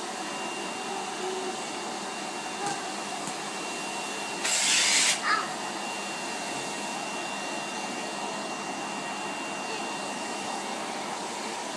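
Vacuum cleaner running steadily with a thin, high whine, with a brief louder hiss about four and a half seconds in.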